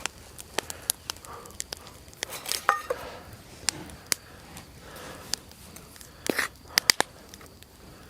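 Irregular sharp snaps and cracks with rustling, from dry twigs and tinder being handled and broken while a campfire is started.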